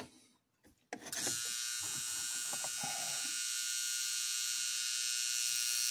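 Steady, high electric whir of the Lionel 671 locomotive's motor running under transformer power, starting suddenly about a second in.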